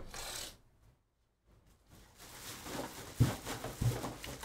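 A short rustle, then a pause, then rustling handling noise with two dull knocks about three and four seconds in.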